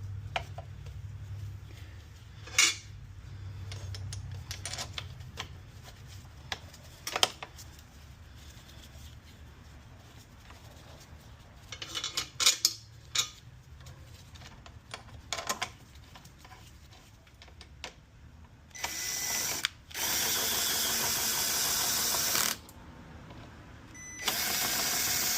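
A few metal clicks and clinks of parts and tools being handled, then a handheld power tool runs in three steady bursts of one to three seconds each near the end, driving fasteners.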